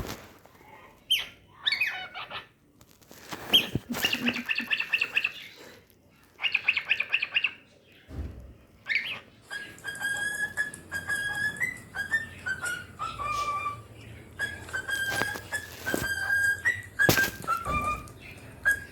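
Cockatiel chirping and chattering in short bursts, then about halfway through whistling a tune of held notes that step up and down in pitch. A few sharp knocks come in between.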